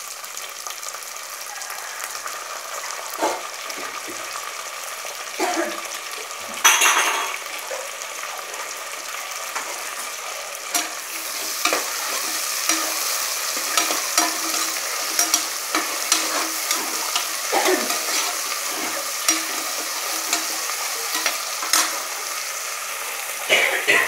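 Shallots, green chillies and freshly added tomatoes sizzling in oil in an aluminium pressure cooker while a ladle stirs them, scraping and clacking against the pot. There is one loud clack about seven seconds in, and the stirring gets busier from about halfway through.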